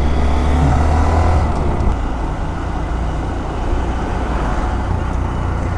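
Vehicle on the move at steady speed: a low, even engine drone with road and wind noise.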